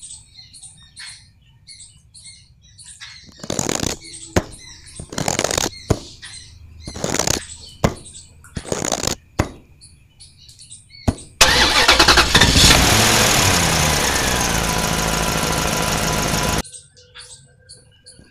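Short scrapes of a small shovel scooping sand into a plastic toy dump truck, with birds chirping. About eleven seconds in, a loud engine sound starts, runs for about five seconds with its pitch dropping partway, and cuts off suddenly.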